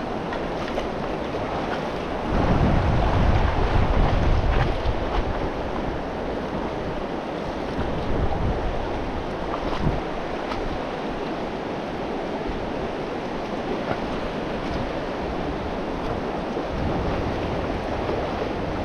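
River water rushing steadily. Gusts of wind buffet the microphone with a low rumble about two to five seconds in, and again near the end.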